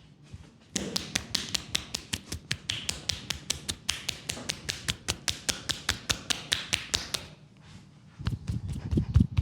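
Rapid percussive massage strokes tapping on a leg, sharp and even at about seven taps a second, stopping for about a second near the end. Then deeper, duller thumps start at a similar fast pace.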